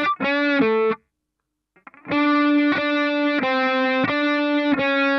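Distorted electric guitar playing a lead phrase. A short note and a held note with vibrato, then about a second of silence, then one note picked again and again, each time held with long sustain.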